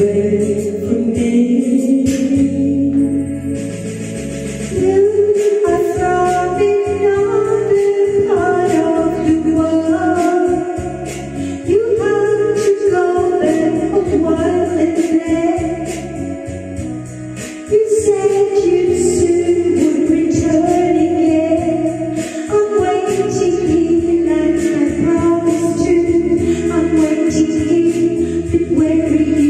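A woman singing a ballad into a handheld microphone over a karaoke backing track, holding long notes in phrases, with a light steady beat underneath.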